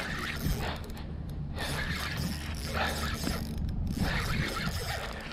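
Fishing reel being cranked to retrieve a lure, its gears and ratchet clicking, over a steady low hum.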